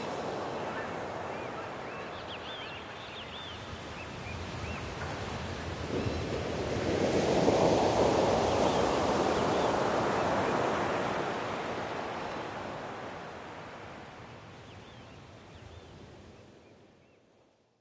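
Ocean surf: a wash of waves swelling to a peak about six seconds in and slowly ebbing away, with a few faint high chirps over it. The sound fades out to silence near the end.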